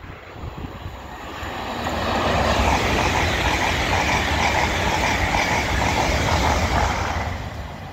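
GWR Class 800 multiple unit passing on the main line: rushing wheel-on-rail noise that builds over the first two seconds, holds with a quick, even run of clicks, and fades near the end.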